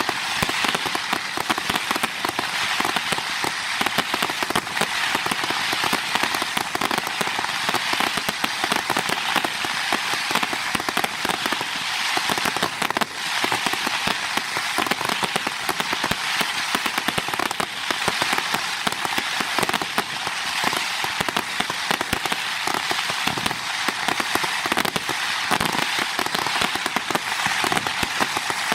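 Fireworks crackling: a dense, unbroken stream of small pops and crackles, with no single big bang standing out.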